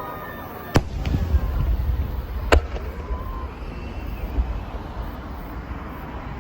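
Aerial fireworks bursting overhead: two sharp bangs about two seconds apart, with low rumbling between and after them.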